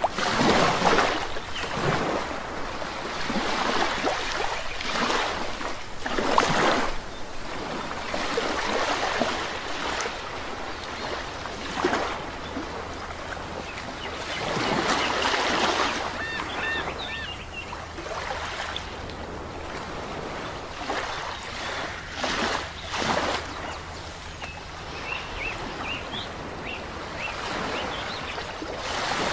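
Sea waves washing onto the shore in repeated swells, with a few short bird chirps about halfway through and again near the end.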